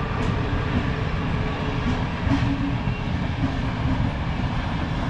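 A train passing close by, a steady low rumble.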